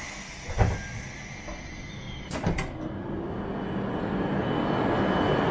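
A dull thump and a couple of sharp knocks as someone steps off a Shinkansen train onto the station platform. A rushing noise then builds steadily louder, with a faint high tone running through it.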